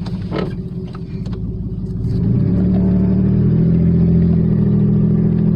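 Dodge Dakota pickup's engine running through a home-built open-element air intake, accelerating about two seconds in: the engine note rises, gets louder and then holds steady.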